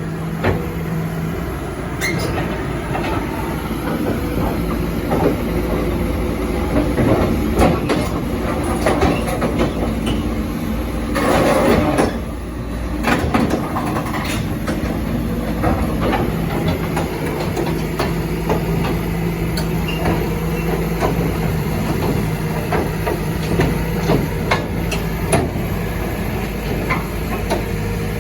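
Kobelco hydraulic excavator running, its diesel engine giving a steady hum while the steel tracks clank and knock repeatedly, as when crawling up onto a truck deck. A louder rushing burst comes about halfway through.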